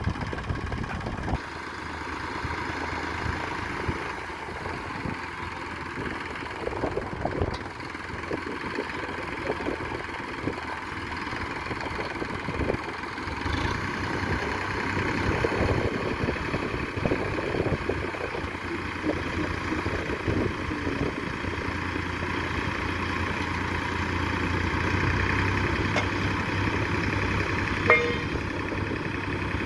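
Diesel engine of a heavy machine running steadily with scattered knocks and rattles, and a sharp click near the end.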